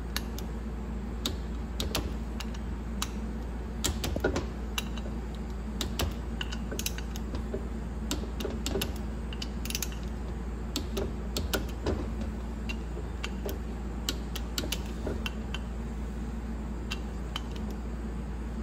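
Hand torque wrench ratcheting and clicking as the bolts of an E4OD/4R100 transmission pump are run down to 20 ft-lb in a criss-cross sequence: a string of sharp, irregular clicks over a steady low hum.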